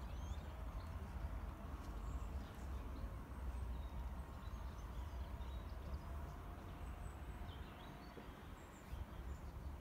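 Outdoor ambience: a low, uneven rumble with scattered faint bird chirps.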